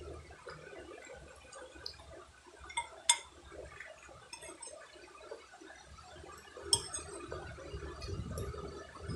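A child eating with his hands: wet chewing and lip-smacking as he sucks sauce off his fingers, with two sharp clicks, the louder about three seconds in and another about seven seconds in.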